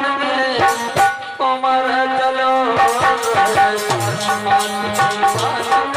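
Bhajan music: held melodic notes over a steady run of hand-drum strokes.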